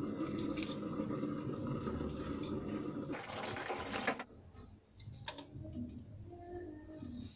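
A steady background hum, then about three seconds in, roughly a second of rushing, sloshing water as cooked spaghetti is stirred in its cooking water with a slotted spoon. It then drops suddenly to a quieter stretch with a few light clicks of metal utensils.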